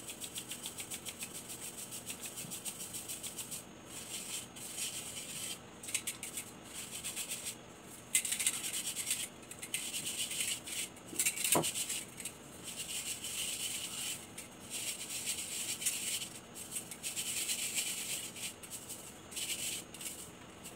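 Ube powder being sifted through a hand-held mesh strainer to strain out the lumps. First comes a fast, even shaking hiss. It then turns into irregular bursts of rubbing and scraping as the powder is pushed through the mesh by hand.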